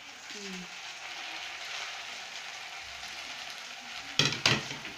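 Omena and onions frying in oil in a pan, a steady sizzle. Two sharp knocks come near the end.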